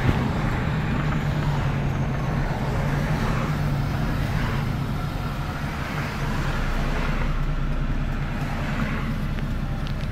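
Duramax V8 turbo-diesel of a GMC C7500 box truck running, heard from inside the cab: a steady low drone, unmuffled because the muffler is, as the driver believes, gone or cracked.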